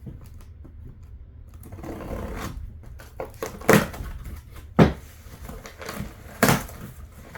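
A cardboard shipping box being opened: a stretch of scraping and tearing about two seconds in, then three sharp cracks as the box is pulled open.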